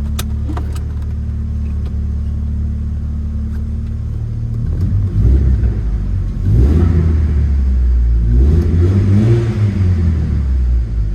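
VW Corrado 16V's four-cylinder engine running while driving: a steady drone for the first few seconds, then rougher and louder as it pulls away, swelling twice. A couple of short clicks come right at the start.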